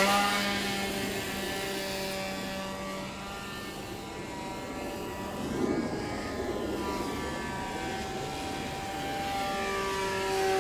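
Small foam RC plane's motor and propeller buzzing in flight. The buzz fades over the first couple of seconds as the plane flies away, then its pitch bends up and down as it circles.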